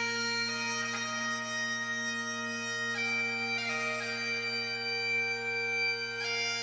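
Bagpipes playing a slow tune of long held notes over a steady, unchanging drone.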